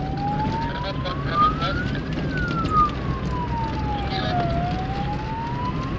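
Wailing siren gliding slowly up and down, about one rise and fall every four to five seconds, over the low running noise of a vehicle on a gravel track, with a couple of short knocks.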